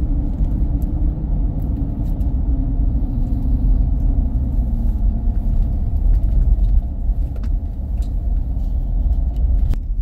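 Steady low rumble of engine and tyre noise inside a pickup truck's cab while driving along the road.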